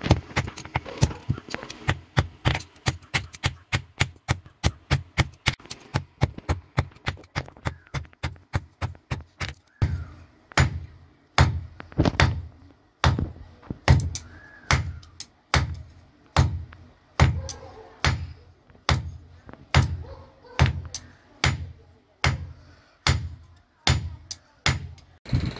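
Hammer blows on a red-hot steel bar held in tongs on an anvil, forging a chisel: quick ringing strikes about four a second. About ten seconds in they slow to a little over one a second and sound deeper, stopping just before the end.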